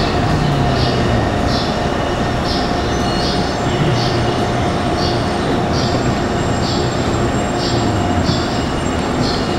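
Taipei Metro C301-type train with retrofitted inverter propulsion running along the line: a steady rumble with a low motor tone that wavers and a short high hiss repeating about one and a half times a second.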